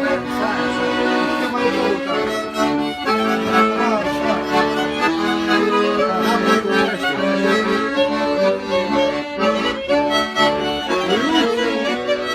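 Accordion and fiddle playing a traditional folk tune.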